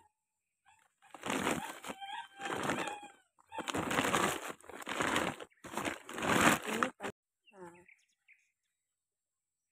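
Woven plastic sack and the paper bag of orchid potting medium inside it rustling and crinkling as they are untied and pulled open, in several bursts of a second or so.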